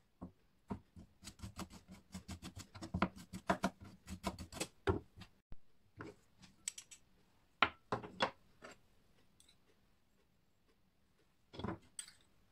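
Food being prepared at a table: a quick run of sharp taps and clicks for several seconds, then a few clinks of a spoon against a ceramic bowl as seasoning goes into it, and a short rasping burst near the end as black pepper is added.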